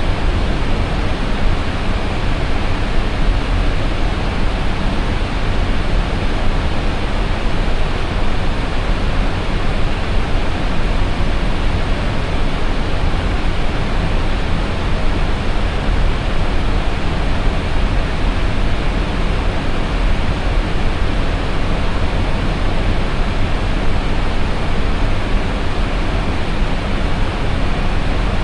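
Steady rushing cockpit noise on an Airbus A320 flight deck: an even, unchanging hiss with a low rumble beneath it.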